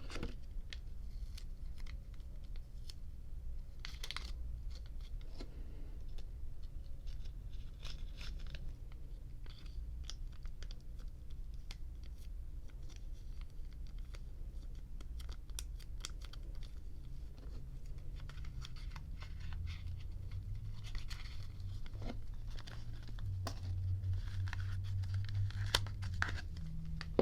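Faint handling of a new Zippo lighter's packaging: scattered small clicks, scrapes and crinkling rustles, with a few longer rustling stretches near the start and toward the end.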